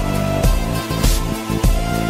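Background music with a steady drum beat, low thumps a little under two a second under sustained notes.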